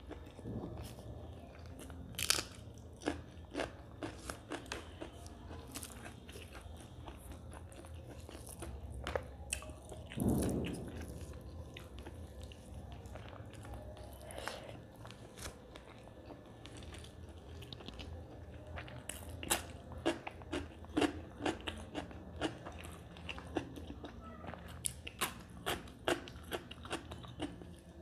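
A woman chewing mouthfuls of rice with mutton curry and a crisp fried topping, with many sharp crunches. The crunches come thicker in the second half.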